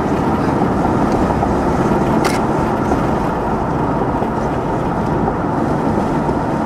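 Steady road and engine noise heard from inside a moving car, with one brief click a little over two seconds in.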